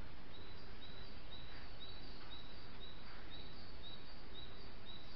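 Steady outdoor hiss with a small bird repeating a short, high call about twice a second at a very even pace.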